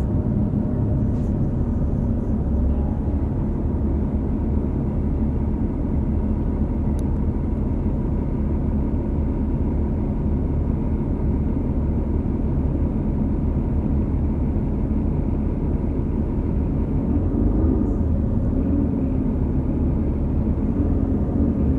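New Flyer XD40 bus with a Cummins L9 diesel and Allison B3400xFE transmission running under way: a steady low rumble with a steady high whine on top, the odd transmission bearing noise that is the sign of a bearing issue. Near the end a lower engine tone rises and falls.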